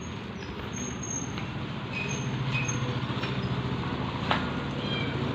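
A motor vehicle engine running with a low, pulsing rumble that grows louder toward the end. A few faint high chirps and a single sharp click about four seconds in sit over it.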